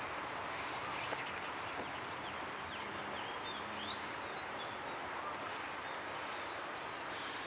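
Birds chirping faintly, a run of short quick chirps a few seconds in, over a steady outdoor background hiss.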